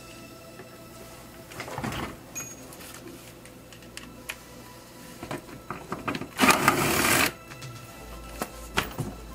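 Power ratchet spinning out 10 mm bolts on a plastic underbody panel in two short runs, the second and louder one about six and a half seconds in. A few sharp clicks of the plastic panel being handled near the end.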